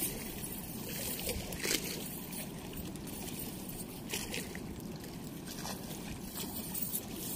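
Steady rushing water, with a few faint clinks as the cast net's chain sinkers are handled.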